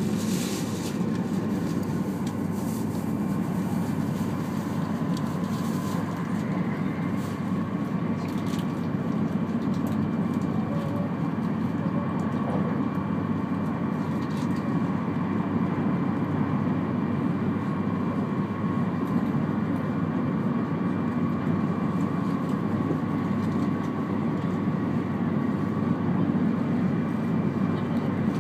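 Cabin noise of a 200 Series Shinkansen running at speed: a steady low rumble of the train on the track, with a faint steady high tone and a few light clicks.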